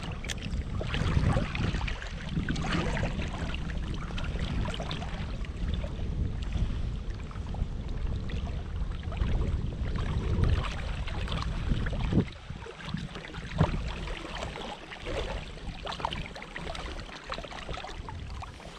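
Wind rumbling on the microphone over water lapping, with scattered small splashes and knocks against a small boat on the river; the rumble eases about twelve seconds in.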